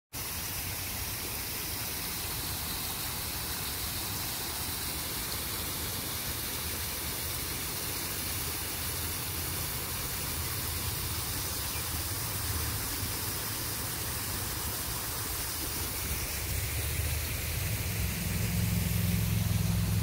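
Small rock waterfall spilling into a garden pond: a steady rush of falling water. A low rumble underneath grows louder near the end.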